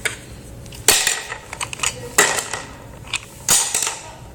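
Toy pots, pans and utensils clattering as they are handled: three louder clacks spaced evenly, with lighter taps and knocks between.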